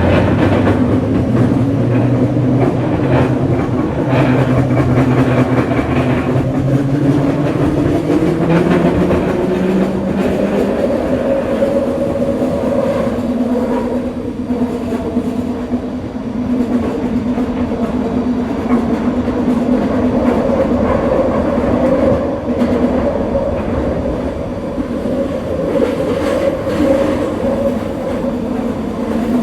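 Scarborough RT light-metro car, driven by a linear induction motor, running along the track: a tonal hum that rises in pitch over the first ten seconds or so as the train picks up speed, then holds steady at cruising speed over the rumble and clatter of the wheels on the rails.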